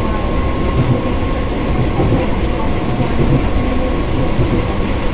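Moving passenger train heard from inside the carriage: a steady low rumble of wheels on the track with irregular clattering knocks and a faint steady whine.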